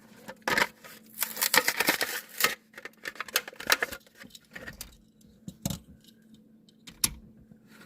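A Hot Wheels blister package being opened by hand: the plastic blister and card crackle and click in a dense flurry for a few seconds, then a few single clicks.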